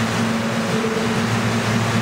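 Subway train standing in the station with its doors open: a steady low hum over an even hiss from the idling cars' equipment and air-conditioning.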